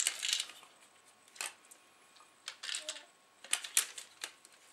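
Scattered light clicks and knocks of a plastic CD drive mechanism being handled and tipped upside down to shake out two screws.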